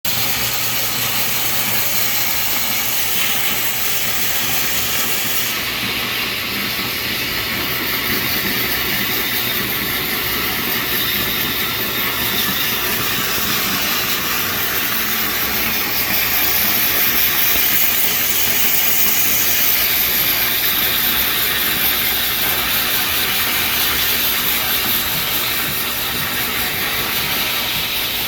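Steady hissing of a cleaning spray jet working over an air conditioner to strip grease, the hiss changing in tone every several seconds as the jet moves, over a faint low machine hum.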